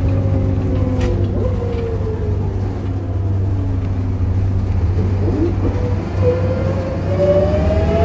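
Volvo B7RLE single-deck bus heard from inside the saloon while driving: a steady low diesel drone with a groaning tone above it that slides in pitch, sinking over the first few seconds and climbing again near the end.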